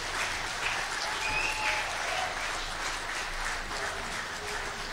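Audience applauding steadily, with a brief high call from the crowd about a second in.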